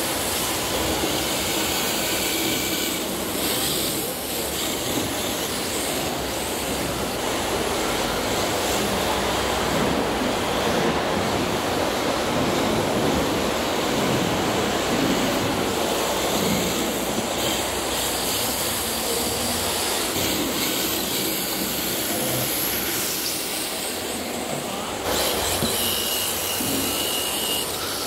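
Electric 1:10 RC drift cars sliding around an indoor track: a steady hiss of hard tyres skidding and the whine of motors over hall noise. The sound shifts abruptly about four seconds in and again near the end.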